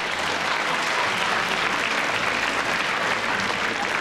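Studio audience reacting with sustained laughter and applause, a dense steady wash of clapping and crowd noise.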